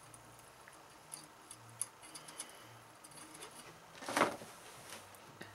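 Faint small metallic ticks and clicks of an Allen key turning the small screws of an AR-15 handguard trim ring, with one louder brief scrape a little past four seconds.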